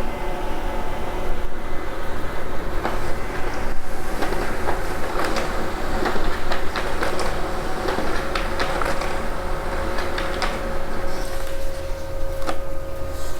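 Brother HL-L2350DW laser printer printing a report page: a steady motor and fan hum with a run of quick clicks and rattles as the paper feeds through.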